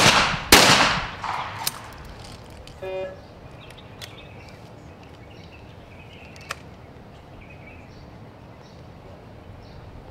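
Two shotgun shots fired from an over-and-under skeet gun at a double of clay targets, about half a second apart, each followed by a short ringing echo. After them only a low outdoor background remains.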